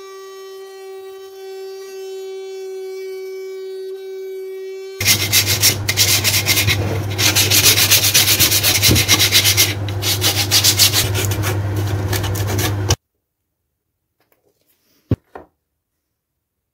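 Hand-sanding the edge of a plywood board with a sanding block: quick back-and-forth scratchy strokes for about eight seconds that stop suddenly. Before the sanding starts, one sustained musical note is held for about five seconds, and a single small click comes near the end.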